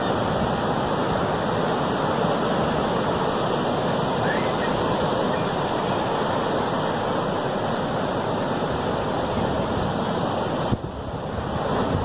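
Ocean surf breaking and washing up the beach, a steady wash of waves. A single click near the end, with a brief dip in the sound.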